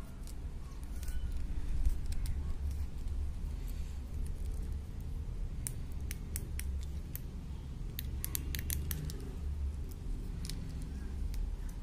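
A small metal keychain laser pointer being handled: light scrapes and clicks as its battery section is screwed shut and its buttons are pressed, with a run of quick clicks about eight to nine seconds in, over a low rumble of hands near the microphone.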